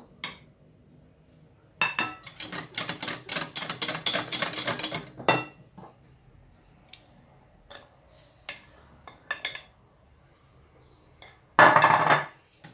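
Metal kitchen utensils clinking and scraping against a glass mixing bowl and plate as semolina is spooned into the batter. There is a quick run of strokes for about three seconds, a few single clinks, and a louder clatter near the end.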